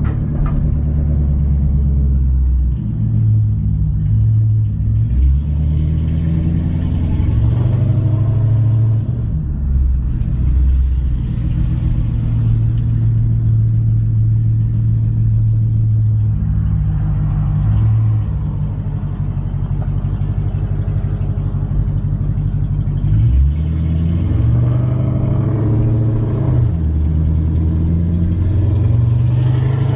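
Chrysler 300C's 5.7-litre Hemi V8 running through a straight-piped true dual 3-inch exhaust with no mufflers, resonators or cats, heard while driving. The deep engine note rises and falls several times as the car speeds up and slows.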